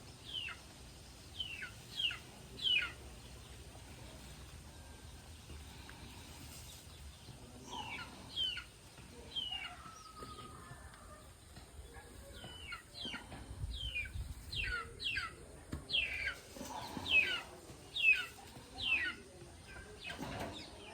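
A bird calling again and again: short high notes that slide sharply downward, a handful near the start, a few more midway, then a longer run of a dozen or so.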